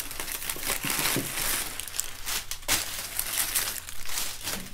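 Plastic wrap crinkling and rustling in a quick run of crackles as a wrapped bundle is handled and lifted out of a cardboard box.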